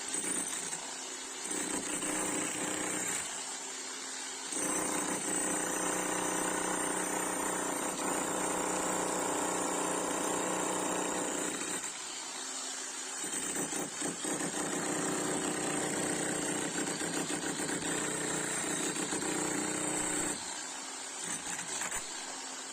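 11 kg electric demolition hammer running against concrete, breaking it away. It starts with short runs, then hammers continuously from about five seconds in until near the end, with a short easing off in the middle.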